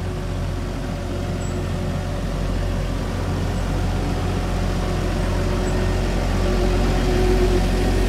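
Diesel engine of an XCMG pneumatic-tyred road roller running steadily as it rolls over fresh asphalt, growing louder near the end as it comes close.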